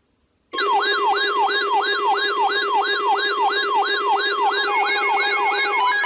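Several NOAA weather radios going into alert alarm together, set off by an incoming tornado warning. A siren-like wail falls in pitch about three times a second over steady tones, starting about half a second in, and more steady beeping tones join near the end.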